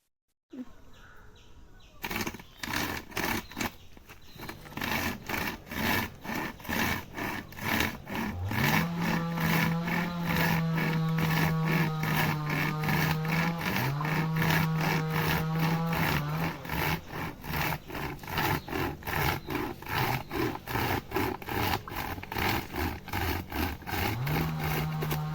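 A homemade pocket chainsaw, a loose chainsaw chain pulled back and forth by two rope handles, rasping through a tree branch in steady strokes, about two a second. An engine's hum rises and holds three times, about eight seconds in, at about fourteen seconds and near the end.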